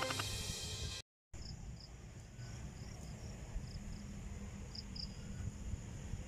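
A music tail cuts off about a second in. Crickets then chirp in short paired pulses every second or so, over a steady high whine and low rumble.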